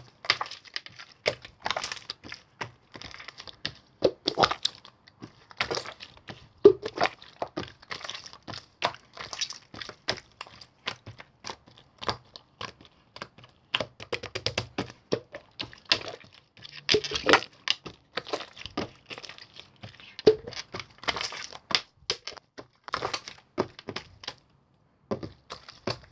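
Slime being squished and pressed in the hands, making rapid, irregular sticky clicks and crackling pops, with a short pause near the end.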